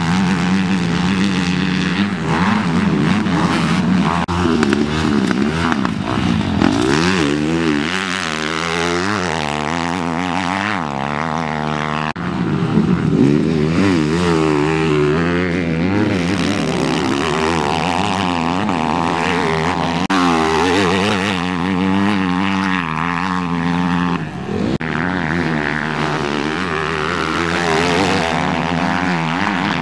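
Motocross dirt bike engines racing on a track: several engines revving up and down through the gears, overlapping. The sound jumps abruptly twice.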